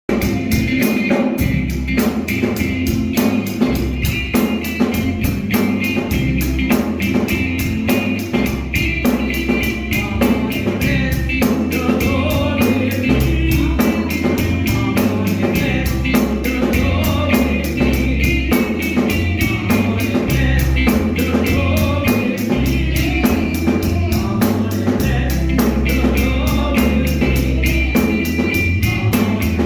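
Gospel music with singing, a choir and a steady drum beat with tambourine, starting abruptly.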